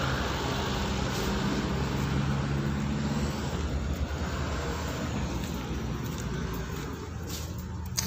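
Hino Ranger FL 260 JW truck's six-cylinder diesel engine idling steadily.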